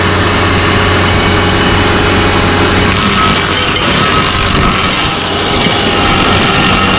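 An engine running steadily and loudly, with a steady low hum. A harsher hiss rises about three seconds in and eases off about two seconds later.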